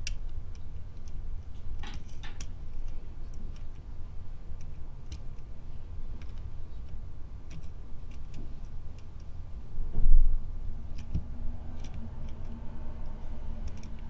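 Lock pick and tension wrench working the pins of a cutaway pin-tumbler lock, picking them one at a time into position: scattered faint metallic clicks and scrapes, with a dull thump about ten seconds in.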